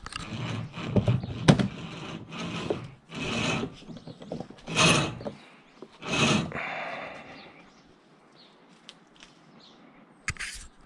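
Rope being pulled by hand through a small pulley to take up the slack: three long swishes about a second and a half apart, after some rustling and sharp clicks of handling. A few small clicks near the end.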